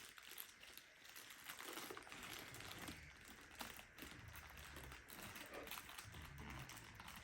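Faint handling sounds: light plastic clicks and rustling from robot vacuum filters and parts being taken out and handled.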